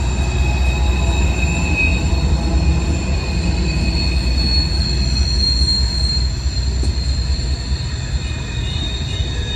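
A train rolling through a tight curve: the wheels squeal against the rails in several steady high tones over the heavy low rumble of the passing cars.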